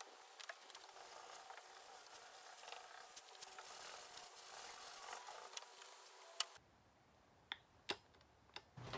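Faint room noise with scattered light clicks and taps as a fiberglass spoiler is handled against a car's trunk lid. About six and a half seconds in the background drops away suddenly, leaving a few isolated clicks.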